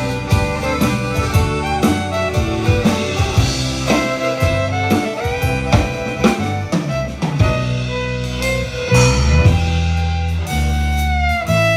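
Live folk band playing an instrumental break between verses: accordion, acoustic guitars and a drum kit keeping a steady beat, with a few sliding notes near the end.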